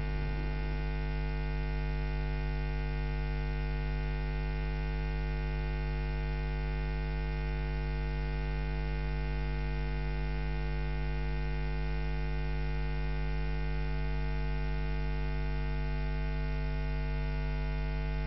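Steady electrical mains hum with a dense buzz of overtones, unchanging throughout: interference on the broadcast audio track rather than any sound from the scene.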